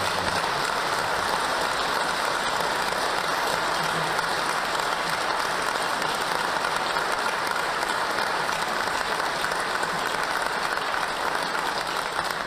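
Long, steady applause from a studio audience.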